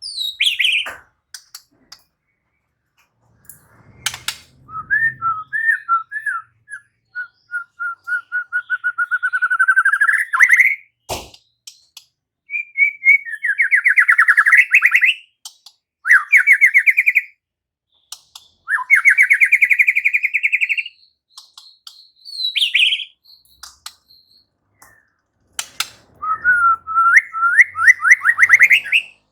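White-rumped shama singing in loud phrases of rapid, rising trills and whistled notes, with short pauses between them. A single sharp click comes about a third of the way through.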